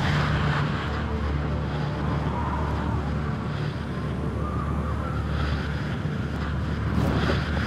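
Freefall wind rushing over a skydiver's body-worn camera microphone just after he is ejected from an aerobatic plane: a steady, loud buffeting rush.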